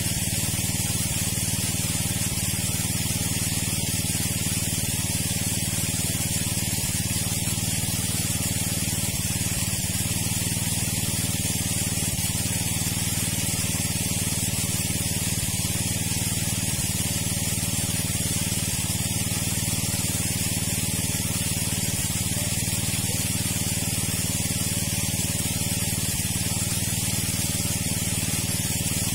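Small engine-driven water pump running steadily, its engine hum under the hiss of water rushing out as the pond is pumped down.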